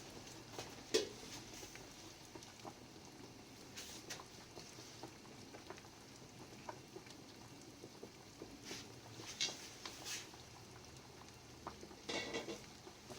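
Faint cooking sounds from a pot: a light patter and crackle of water simmering, with scattered taps of a utensil and a few sharper clinks of the pot, one about a second in and a few near the end.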